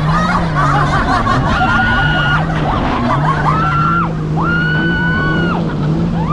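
Jet ski engine running steadily, its pitch dropping and picking up again as the throttle is eased and opened, over the rush of water. On top of it a rider lets out laughter and three high held squeals, the longest about a second.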